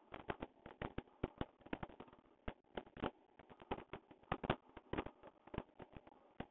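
Jump rope skipping: the rope ticking against the pavement as the jumper lands, a quick, uneven run of sharp ticks, several a second.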